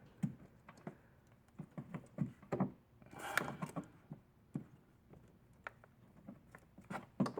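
Scattered light knocks and clicks, with a short scraping rustle about three seconds in: hands working the plastic hose connectors and locks of a car's EVAP purge valve loose.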